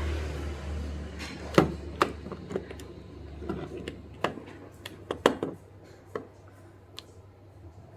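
A mobile phone being handled: about ten irregular sharp clicks and taps, the loudest about a second and a half in. A low hum fades out in the first second.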